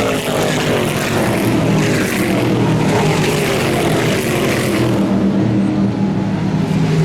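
Stock Car race cars' V8 engines running at full speed past the grandstand, several cars at once, their pitch sliding down as they go by.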